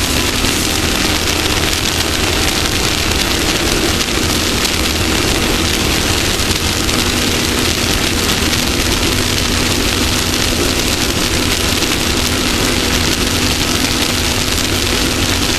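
Off-road race vehicle's engine running hard at a steady pitch, under a loud, even rushing noise.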